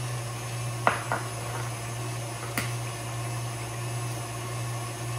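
Stand mixer motor running steadily while it creams butter, with a few sharp taps and cracks of eggshell about a second in and again after two and a half seconds.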